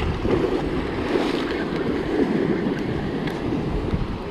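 Sea waves washing and breaking against a rocky shore, a steady rushing, with wind buffeting the microphone.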